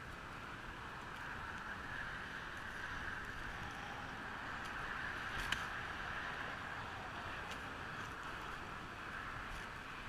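Steady outdoor noise that rises and falls gently, with one faint click about five and a half seconds in.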